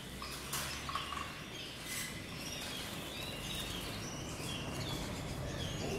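Canaries chirping, short scattered calls, over a low steady hum, with a couple of brief knocks about half a second and two seconds in.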